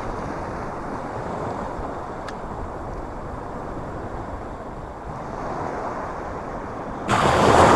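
Sea water washing around a wader, with wind on the microphone, as a steady rushing noise. About seven seconds in, a sudden loud rush of surf, a wave washing up against him, which then fades away.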